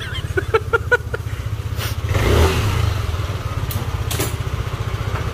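Yamaha Aerox 155 scooter's single-cylinder four-stroke engine idling, with one short rev about two seconds in before settling back to idle. The scooter is being test-run on a newly fitted 15T primary drive gear.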